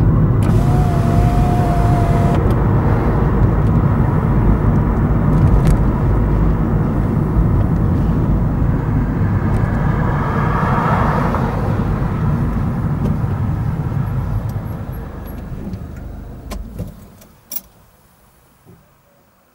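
Car driving along a road, a steady low rumble of engine and tyre noise that fades away as the car slows and comes to a stop, with a few sharp clicks just after it stops.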